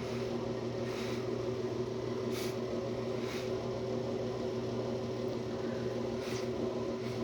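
A person sniffling four times in short bursts through a snotty, running nose, over a steady electrical hum.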